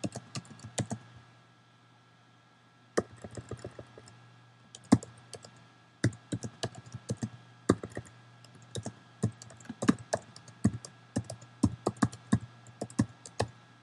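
Typing on a computer keyboard: irregular key clicks, with a pause of about two seconds shortly after the start, then a fairly steady run of keystrokes.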